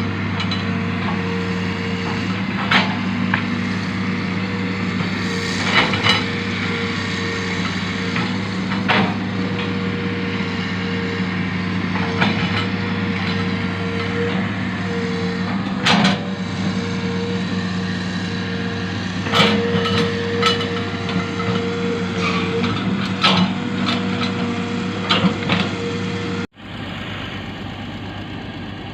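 Hitachi ZX200 excavator's diesel engine running at a steady speed, with scattered sharp metallic knocks and clicks. The hum drops slightly quieter after an abrupt break near the end.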